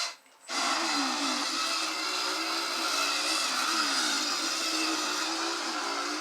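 Battery-powered animated toy chainsaw prop running after its button is pressed, starting about half a second in: a steady whirring buzz whose pitch wavers up and down.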